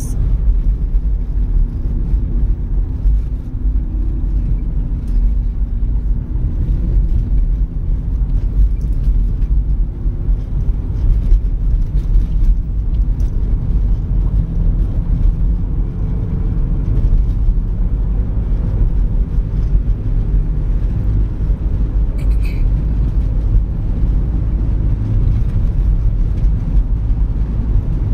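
Inside a moving car: a steady low rumble of tyre, road and engine noise while driving on a rough paved road. A brief faint high squeak comes about three-quarters of the way through.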